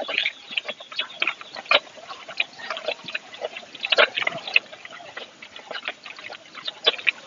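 A calf suckling at a cow's udder: irregular wet slurping and smacking sounds, several a second, as the calf brings on the cow's milk let-down before hand milking.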